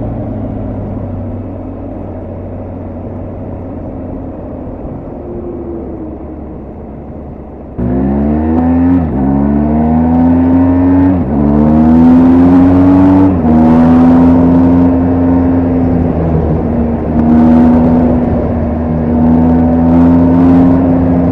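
BMW R1250GS Adventure's boxer-twin engine and exhaust on the move. It runs quietly off the throttle at first. About eight seconds in, the throttle opens sharply and the engine pulls up through the gears, its pitch climbing and dropping at three quick upshifts, then holds a steady, louder cruise.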